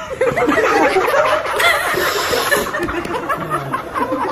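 Several people laughing at once, many overlapping laughs throughout.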